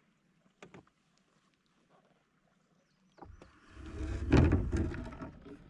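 A few faint clicks of fishing tackle being handled, then, about three seconds in, a loud rumbling rustle lasting about two seconds as the kayak angler shifts in his seat and moves his hands to the paddle.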